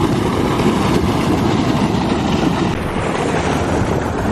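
Turbulent canal water rushing and churning, a steady loud roar, with wind buffeting the microphone.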